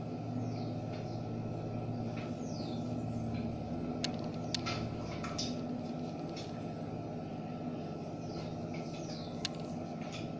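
Birds chirping with short falling whistles over a steady low hum, with a few light clicks of a glass and plate being handled about four to five seconds in and once more near the end.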